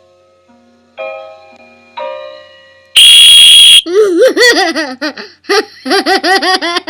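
A few plinked piano-like notes, then a loud shrill squeal lasting under a second about three seconds in, followed by a toddler laughing hard in quick repeated bursts.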